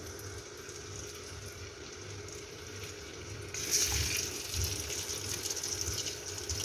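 Chicken pieces frying in hot oil in a karahi: a steady sizzle that turns louder and more crackly about three and a half seconds in, as another piece goes into the oil.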